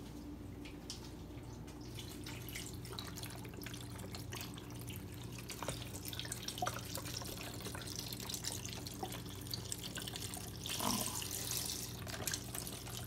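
Chicken stock pouring from a carton into an Instant Pot's steel inner pot onto dry pasta shells: a steady trickle with small splashes, briefly louder near the end.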